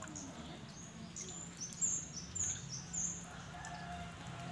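Birds chirping: a quick run of short, high chirps in the middle, over a low steady hum.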